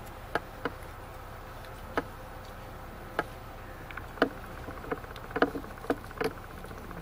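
Quiet outdoor crowd ambience: scattered light clicks and knocks over a low rumble, with a faint steady buzz starting about four seconds in.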